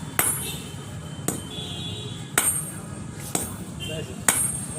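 Hammer striking steel on an anvil while forging a chisel: five sharp, ringing blows about a second apart, over a steady low hum.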